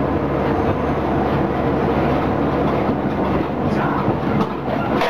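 Botchan Ressha replica steam locomotive's diesel engine running with a steady low drone as the train rolls along the track, its wheels rumbling on the rails with a few faint clicks.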